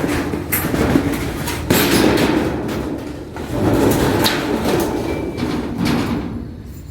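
Corrugated tin sheets rattling and clattering as they are handled and fixed in place, with several sharp knocks.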